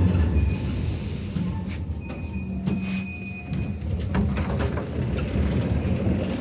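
An 81-717-type metro train running and slowing as it comes into a station, with a steady low rumble of wheels on track. Faint, brief high squeals come about two seconds in.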